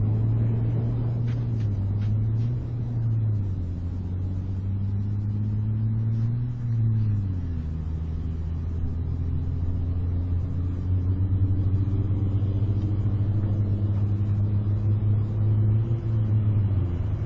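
A steady low engine rumble with a hum whose pitch shifts up and down a few times, creeping slowly upward and then dropping near the end.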